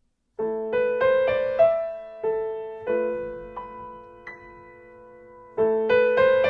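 Solo piano playing a slow, gentle melody of single notes over sustained lower notes, each note ringing on. The phrase begins just after the start, thins to a few soft notes, then the opening figure comes round again a little before the end.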